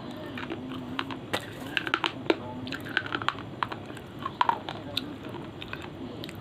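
Close-up crunching as brittle slate pencil pieces are bitten and chewed: irregular sharp, crisp cracks, several a second.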